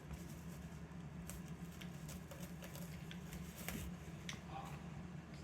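Faint scattered clicks and light rustles of a new balance bike's packaging being handled and cut free, over a steady low hum.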